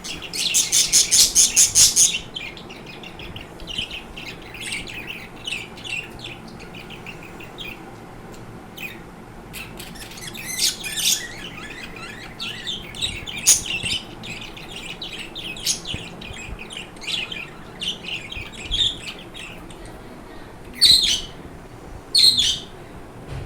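Pet budgerigars chattering and warbling. It opens with a loud, fast pulsed chatter for about two seconds, then goes on as a run of short chirps and warbles, with two loud sharp calls near the end.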